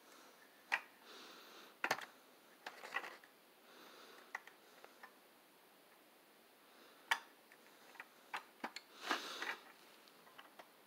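Light, irregular clicks and taps of a 1:32 scale die-cast toy truck being handled and moved over carpet, with a few soft rustles in between.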